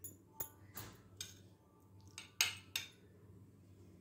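A metal spoon clinking against the dishes while mango chunks are scooped and set onto a custard trifle: a scatter of light, sharp clinks, with two louder ones close together a little past halfway.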